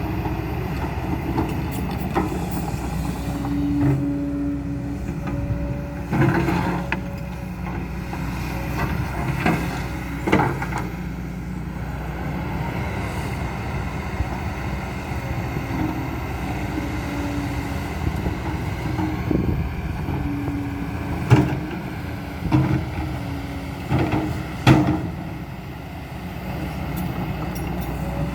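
Kobelco SK200-10 hydraulic excavator running steadily under work, with a pitched tone that swells in and out and several sharp knocks of the bucket and steel working parts.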